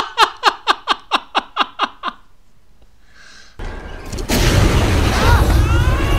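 A man's hearty laughter, a quick run of 'ha's about five a second, falling in pitch and fading out about two seconds in. After a short lull, a flamethrower's loud rushing blast starts and swells, with rising-and-falling tones over it.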